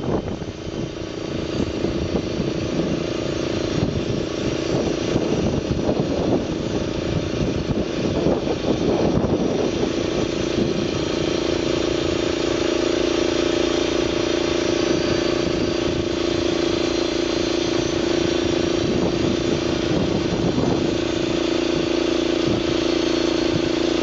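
Small petrol engine of a homemade band sawmill running steadily under load while the band blade saws through a squared timber cant. The running note is less even for the first several seconds and then settles into a steady drone.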